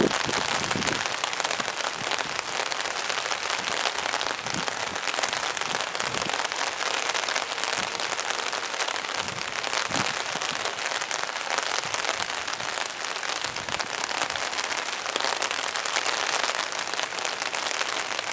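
Rain falling outdoors: a steady hiss with many small scattered drop impacts.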